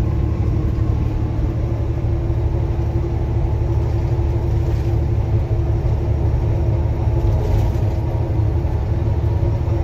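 Semi truck cab at highway speed: a steady low rumble of engine and road noise with a constant droning hum over it.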